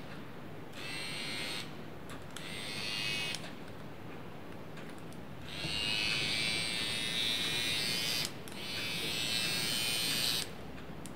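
Cordless electric hair trimmer switched on and off several times, its small motor and blade buzzing in short runs, the longest about three seconds near the middle. It is running on a newly fitted 1.2 V rechargeable battery.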